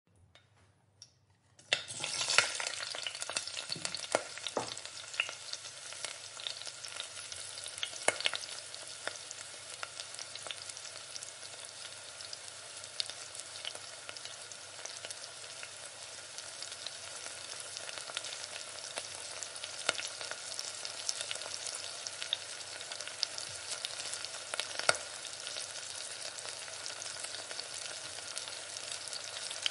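Vegetables stir-frying in a hot pan: a steady sizzle that starts about two seconds in, with frequent clicks and scrapes of a metal utensil tossing the food.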